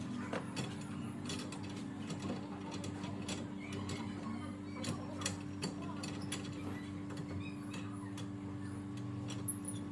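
Paintless dent repair tools working a car body panel: irregular light metallic clicks and taps, several a second at times, over a steady low hum.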